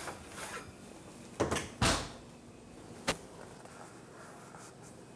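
A metal baking pan slid onto an oven rack and the oven door shut, giving a few knocks and clunks with the loudest about two seconds in, then a sharp click about three seconds in.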